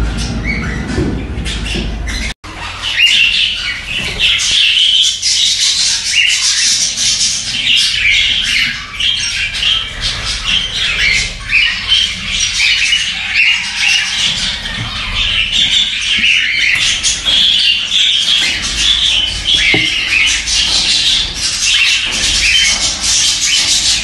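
Cockatiel chicks in a nest box giving rapid, repeated begging calls that run on without a break. A low rumble is heard in the first two seconds, before the calls begin.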